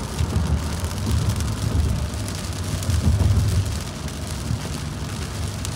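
Car driving in light rain: a low, uneven rumble of road and engine noise with rain spattering on the car.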